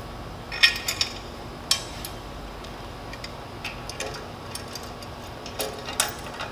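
Metal clinks and clicks as a steel mounting bracket and socket head cap screws are handled and fitted onto clamps. There are about half a dozen sharp, separate clicks, spread irregularly over a steady background hum.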